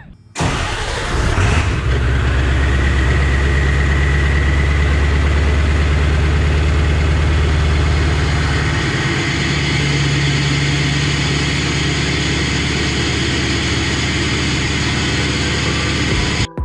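Cold start of a 1997 Ford pickup's diesel engine, idling steadily with a faint high whine. Its low note drops slightly about nine seconds in.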